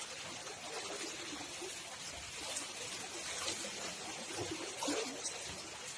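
Floodwater flowing with a steady hiss, and faint voices talking in the background.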